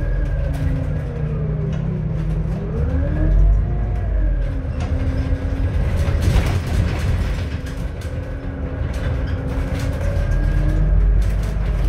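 Scania Citywide LF natural-gas city bus heard from on board: engine rumble and drivetrain whine. The whine falls over the first two seconds, climbs again as the bus pulls away, then holds steady.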